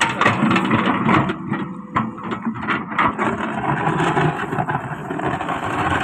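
Solar 130 wheeled excavator's diesel engine running under load as its bucket digs and scrapes through stony soil, with sharp knocks of rock and dirt against the bucket in the first few seconds.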